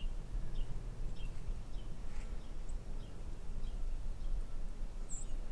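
A small bird giving short, falling chirps about twice a second, with one higher chirp near the end, over a steady low rumble.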